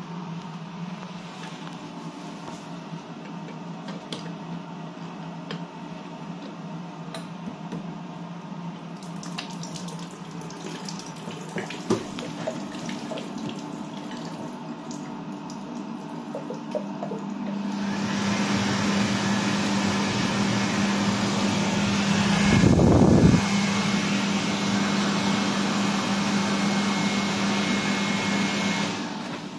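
Automatic hand dryer in a train toilet's under-mirror soap, water and dryer unit: after a stretch of steady low hum and a few small clicks, it starts up a little past halfway with a steady rush of air over a hum. There is a brief louder gust partway through, and it cuts off near the end.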